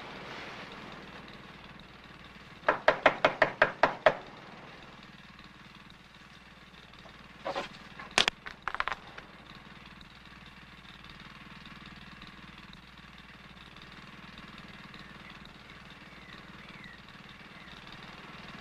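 A rapid run of about nine sharp knocks lasting under a second and a half, then a few scattered knocks and clicks several seconds later, over a low steady background.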